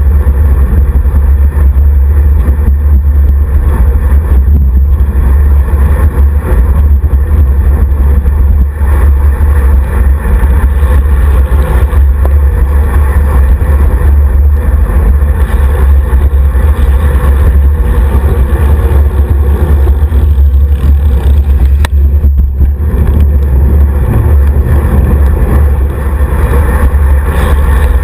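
Wind buffeting the microphone of a handlebar-mounted action camera on a road bike riding at speed, a loud, steady low rumble.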